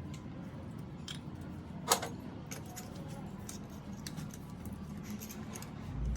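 Small metallic clicks and clinks of metal parts and hand tools being handled, with one sharp clank about two seconds in, over a low steady hum.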